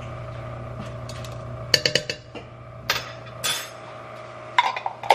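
A metal spoon clinking and tapping against a glass jar and the pot while minced garlic is scooped into the pot: sharp clinks in quick clusters about two seconds in and again near the end, over a steady background hum.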